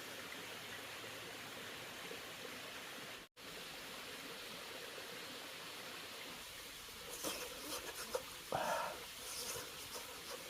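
Steady even hiss of background noise, with a few sharp clicks and rustles and a brief voice-like sound near the end.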